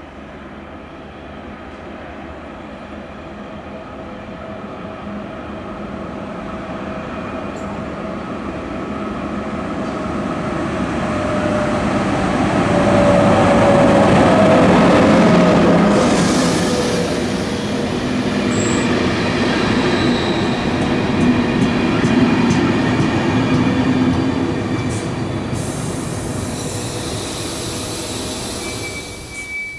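HŽPP class 1142 electric locomotive hauling passenger coaches, approaching and passing close by. The sound grows steadily louder, is loudest about halfway through as the locomotive goes past with a steady tone, and then continues as the coaches' wheels roll by on the rails.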